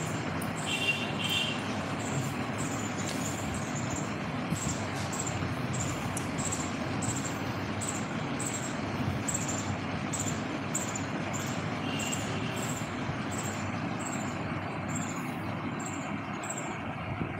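Steady background noise with a faint high ticking about twice a second.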